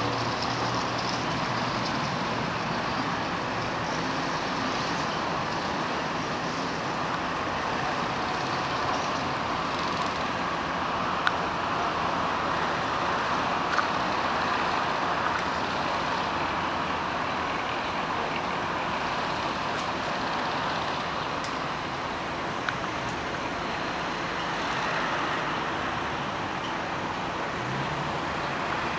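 Steady noise of road traffic, with a few faint clicks.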